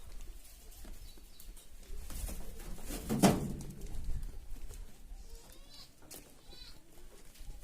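Saanen goat bleating once, loudly, about three seconds in.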